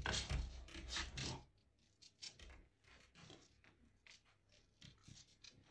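A puppy's claws scratching and scrabbling at a glass door for about a second and a half, then near silence with a few faint taps.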